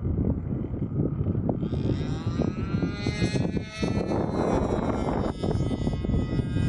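Tucano RC model plane's 10cc gas engine buzzing in flight, its pitch climbing about a second and a half in, over a loud low rumble of wind on the microphone.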